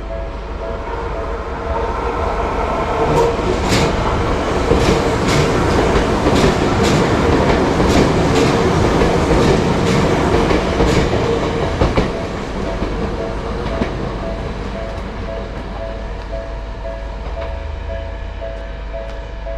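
Japanese level-crossing warning bell ringing steadily while an electric commuter train on the JR Nambu Line passes. The train's rumble swells and fades over about ten seconds, with regular clicks of wheels over rail joints as the cars go by.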